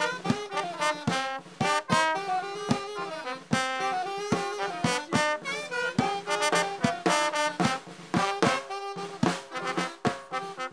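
Lively brass band music: horn melodies over a quick, steady beat of drum hits.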